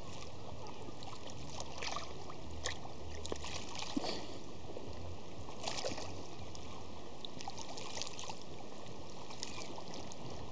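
Shallow lake water lightly splashing and trickling around a small child as he wades and sits down in it, with a few soft splashes in the first six seconds over a steady hiss.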